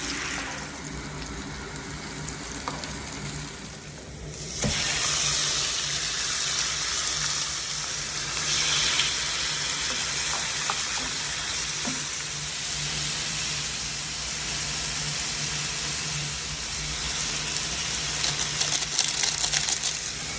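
Food sizzling as it fries in a hot pan, with stirring. The sizzle jumps suddenly louder about four and a half seconds in and crackles with spatters near the end.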